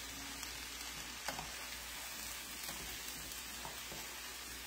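Chopped cabbage, onion and jalapeño sizzling in bacon grease in a pot while a spoon stirs them, with a sharp click of the spoon against the pot about a second in.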